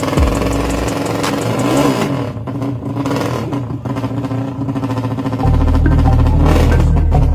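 450cc DOHC drag-bike engine revving, its pitch rising and falling, under background music. The music's bass drops out about two seconds in and comes back a little after five seconds.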